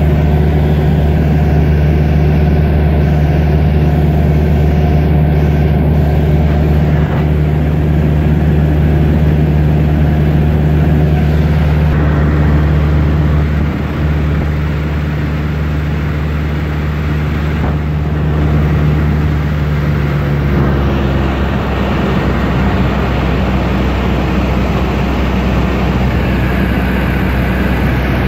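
Cessna 152's four-cylinder Lycoming engine and propeller droning steadily in cruise, heard from inside the cabin. About halfway through the drone drops a little in level and shifts slightly in pitch, then holds steady again.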